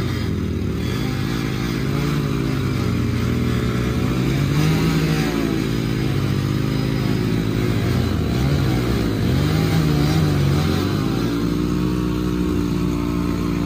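Small single-cylinder motorcycle engines held at high revs under heavy load in a rope tug-of-war between two bikes. The pitch keeps rising and falling as the throttle is worked and the rear tyre spins in the dirt.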